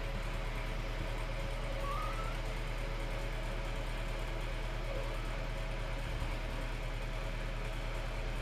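Steady low mechanical hum, with a faint short rising squeak about two seconds in.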